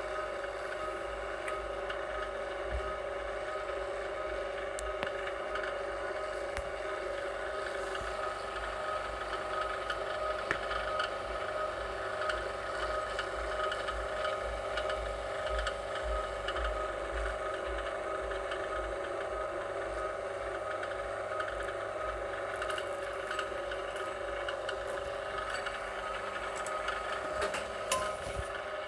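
VEVOR electric wire stripping machine's motor running with a steady hum, with scattered light clicks and rattles that grow more frequent near the end.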